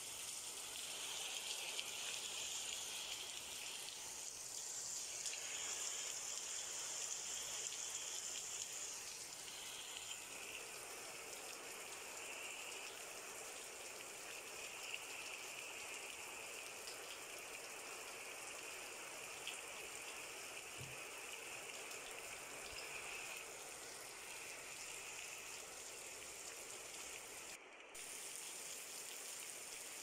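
Heavy rain falling on a swimming pool and lawn: a steady hiss of many drops.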